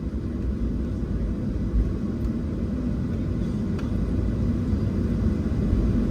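Cabin noise inside a Boeing 737-700: a steady low rumble of the CFM56 jet engines and airframe, slowly getting louder toward the end.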